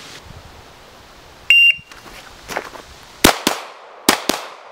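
A shot timer's short electronic start beep, then the Sig P226 9mm pistol firing fast pairs of shots: two pairs, the first about a second and a half after the beep.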